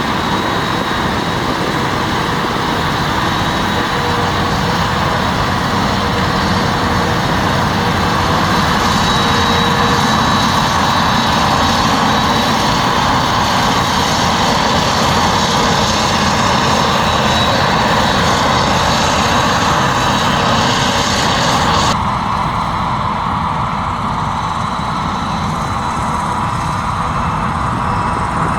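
Heavy farm machinery running steadily, with diesel engines working under load at a maize silage harvest. About three quarters of the way through the sound changes abruptly, losing much of its high hiss and becoming slightly quieter.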